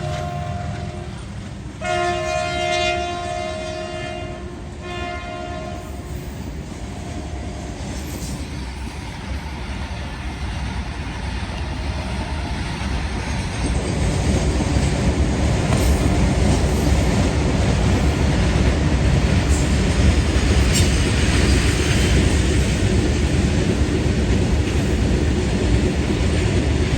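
Indian Railways locomotive horn sounding in several blasts, the longest about two seconds in. It gives way to the rumble and wheel noise of a passing train, which grow louder about halfway through and then hold steady.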